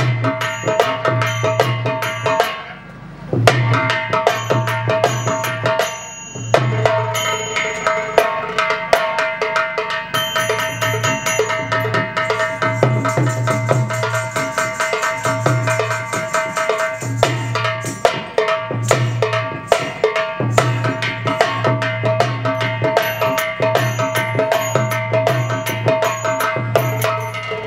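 Indian folk percussion: a cloth-draped drum beaten with a stick in a fast, steady rhythm, with small brass hand cymbals ringing over it. The playing breaks off briefly twice in the first few seconds, then runs on without a pause.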